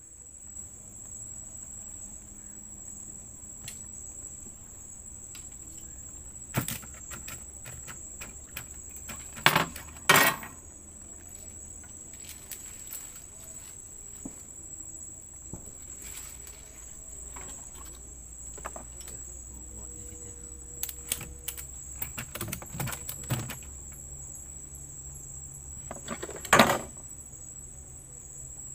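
Insects keep up a steady high-pitched chirring. Several sudden loud knocks or splashes cut across it: the two loudest come close together about a third of the way in, a cluster follows later, and there is one more near the end.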